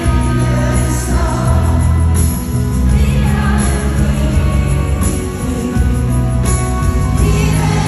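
Live concert music in a large arena: a woman singing lead over a full band.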